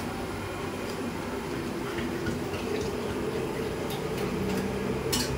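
Tap water running into a kitchen sink over a steady mechanical hum, with a few light clinks and one sharp clatter near the end.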